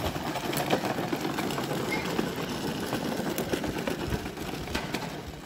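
Hard plastic wheels of a child's ride-on toy quad rolling over paving stones, a continuous rough rattle.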